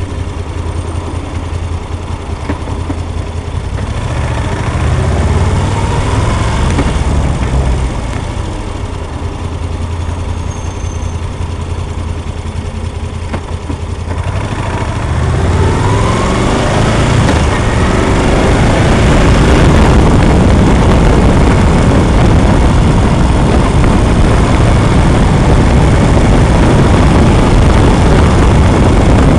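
Motorcycle engine running on the move, rising in pitch as it accelerates about 3 s and 15 s in. From about 16 s loud wind rush on the microphone builds and largely covers the engine.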